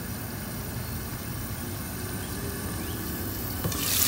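Masala paste cooking down in a lidded frying pan: a low steady rumble with muffled sizzling under the glass lid. Near the end the lid is lifted with a clink and the sizzling turns suddenly louder and brighter.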